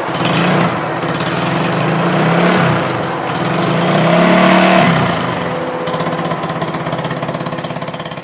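TVS Ntorq 150 scooter's single-cylinder engine running through an aftermarket bend pipe exhaust, revved up and back down twice, then fading near the end.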